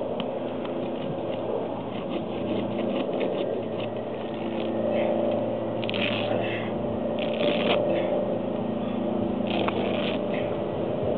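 A steady engine hum runs throughout. Over it come short scraping and crackling noises, three times or so in the second half, as a mud-caked, root-tangled clump of debris is dragged out of wet mud by hand.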